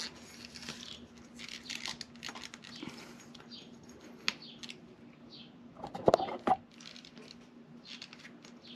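Close handling noises: rustling and scattered light clicks, with two sharper knocks about six seconds in, as hands reposition the camera and work the rubber timing belt onto the cam gears. A faint steady hum runs underneath.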